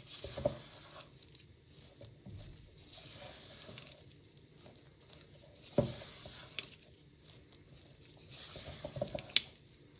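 Silicone spatula folding ground hazelnuts into whipped egg whites in a stainless steel bowl: soft repeated scraping strokes against the bowl, with two sharper knocks, one about six seconds in and one near the end.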